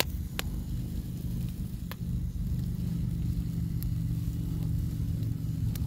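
Wood fire crackling, with a few sharp pops about two seconds apart, over a steady low hum that grows louder about two seconds in.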